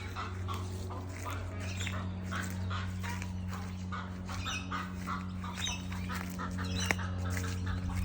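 Birds calling over and over in short, quick notes, with a steady low hum underneath.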